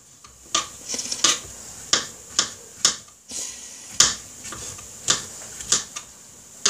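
Kitchen knife slicing button mushrooms on a wooden cutting board, each cut ending in a sharp knock of the blade on the wood: about ten knocks at an uneven pace.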